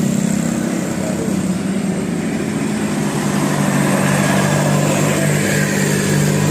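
Bus engine running steadily, a low even hum whose pitch shifts slightly about halfway through.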